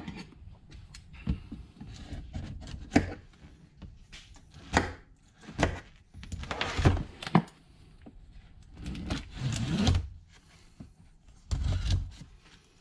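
A cardboard box is handled on a bench while its clear plastic wrap is cut open with scissors. There is a series of knocks and thunks from the box, with a few longer noisy stretches of snipping and tearing.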